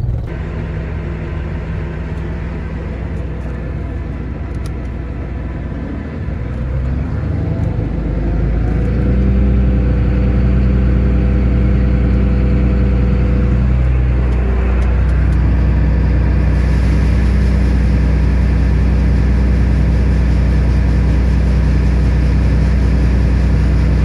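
Tractor's diesel engine running steadily, then revving up about seven seconds in to a loud, steady run as it drives the grain cart's unloading auger, emptying corn into a semi trailer. Its pitch sags briefly about fourteen seconds in, then recovers.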